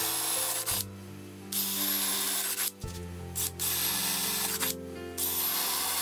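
Cordless drill boring holes down into MDF, in four bursts of about a second each with a high motor whine over the noise of the bit cutting.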